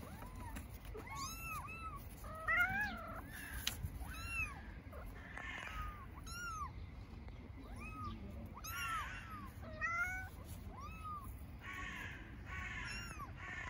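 Young kittens meowing over and over: short, high-pitched calls that rise and fall, about one or two a second, calling for their mother cat.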